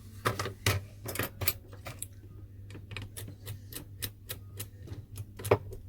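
Irregular sharp clicks and taps of small plastic and metal parts being handled during a phone teardown, some in quick runs, the loudest about five and a half seconds in, over a faint steady low hum.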